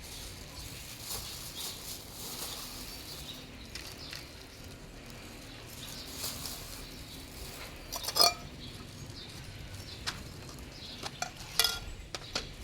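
Dishes clinking and scraping in small scattered clicks, with two louder ringing clinks, about eight and eleven and a half seconds in.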